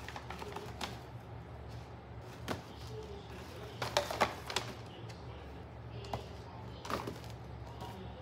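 Paper shopping bags rustling and crinkling as wrapped boxes are handled and lifted out of them. The short crackles are loudest in a cluster about four seconds in and again near seven seconds, over a steady low hum.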